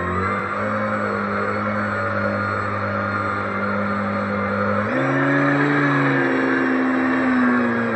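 Radio-controlled racing boat's motor running flat out in a steady drone over rushing water; about five seconds in its pitch steps up, and it drops back again at the very end.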